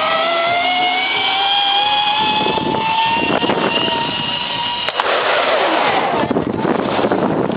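Zip line trolley's pulley wheels whining along the cable, the pitch rising steadily as the rider picks up speed. About five seconds in there is a sharp click, the whine stops, and a rough rushing noise follows.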